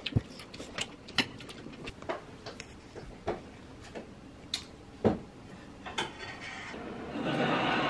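Irregular light clicks and clinks of metal cutlery against a plate during eating. Near the end a louder steady rushing sound comes in.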